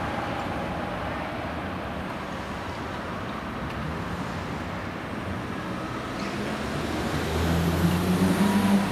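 Steady city street traffic noise. A low engine or motor hum grows louder from about seven seconds in.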